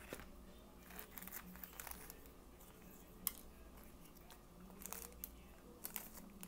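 Clear plastic treat bag crinkling as it is handled, in short scattered bursts, with one sharp click about three seconds in.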